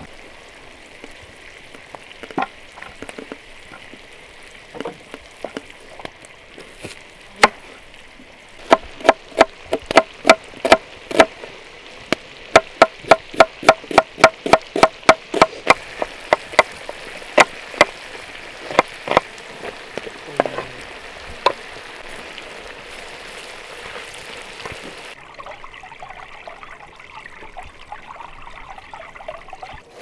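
Chicken pieces frying in butter in a wide pan, with a steady sizzle that cuts off near the end. Through the middle comes a run of sharp knocks, about two a second, many of them with a short ringing tone.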